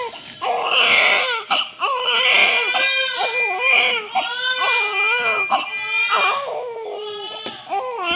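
Newborn baby crying, a string of short wails with brief breaks between them.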